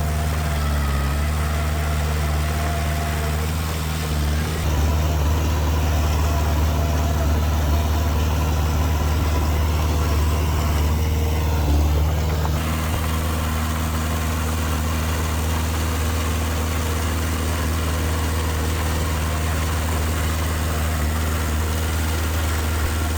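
Diesel engine of heavy earth-moving machinery running steadily with a low drone. It gets a little louder for several seconds from about five seconds in, then settles back.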